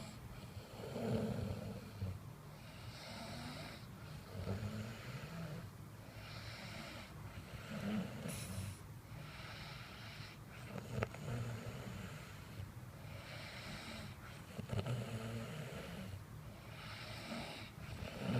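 A person snoring: a rough, low snore about every three and a half seconds, with a breathy hiss between snores.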